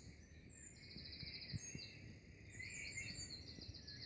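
Faint birdsong: several birds chirping and giving fast high trills over a low background hiss.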